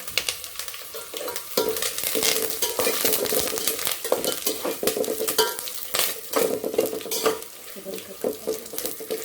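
Curry leaves and dried onion crackling and sizzling in hot oil, with a spoon stirring and scraping the pan and sharp pops throughout.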